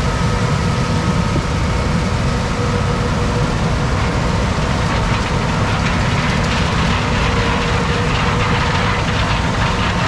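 Heavy farm machinery running steadily: a low, even engine drone with a few faint steady whining tones above it.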